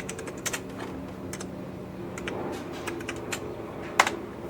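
Typing on a computer keyboard: irregular keystrokes, with one louder key click about four seconds in.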